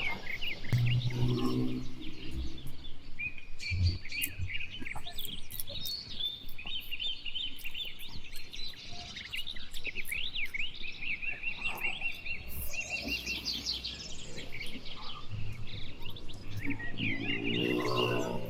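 Small birds chirping and trilling, many short overlapping calls. A lower, drawn-out animal call sounds about a second in and again near the end.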